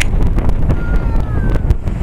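Wind buffeting the camera microphone: a heavy low rumble with frequent crackles, and a faint thin whistle gliding in pitch about a second in.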